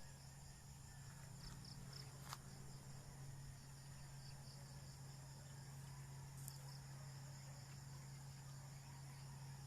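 Steady, high-pitched chorus of insects such as crickets, over a low, even hum.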